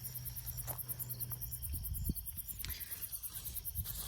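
Crickets chirping in a fast, even, high-pitched pulse that keeps going, with a low wind rumble and a few soft clicks and rustles from bean plants being handled.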